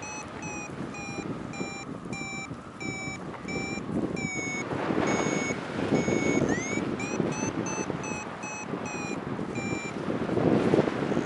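Flight variometer beeping about twice a second in a steady high pitch, the sound it makes while the glider climbs in lift. About halfway through it gives a few longer tones and a rising sweep, and it sweeps up again near the end. Underneath is a rushing noise that swells at those points.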